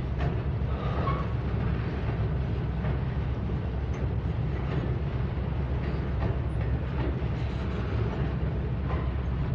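Freight train of covered hopper cars rolling across a steel truss trestle: a steady low rumble of wheels on rail and bridge, with faint clicks now and then.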